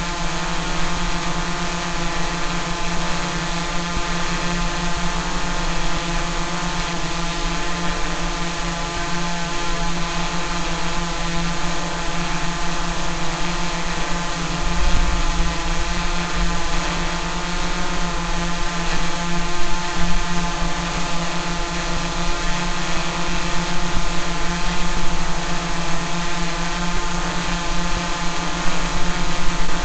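Quadcopter drone's motors and propellers humming steadily, holding one pitch.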